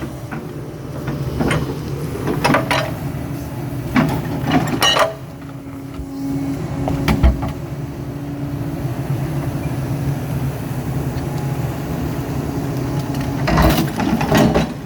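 Excavator's diesel engine running steadily under load while working a massive rock, with sharp clanks and scrapes of steel on rock a few seconds apart and a louder cluster near the end. A steady higher whine, typical of the hydraulics straining, holds for a few seconds in the middle.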